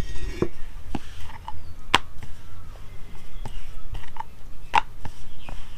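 Rolling pin rolling out a stuffed paratha on a board, knocking against it about eight times at uneven intervals, over a low steady hum.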